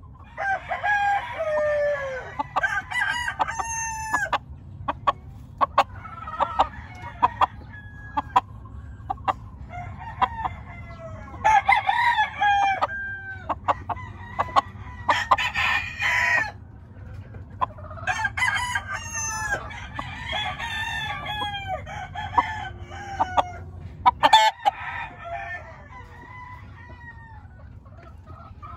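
Game roosters crowing over and over, one crow following another every few seconds, some overlapping at different pitches.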